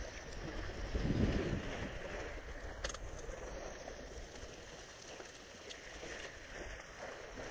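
Wind blowing across the microphone with a stronger gust about a second in, over faint lake water lapping at the shore.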